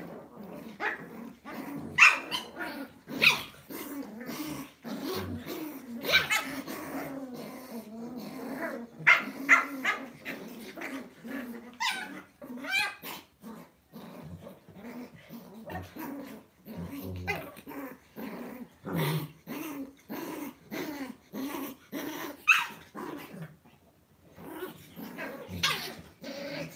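Lhasa Apso dogs play-fighting: continual low growling broken by short sharp yips and barks every few seconds.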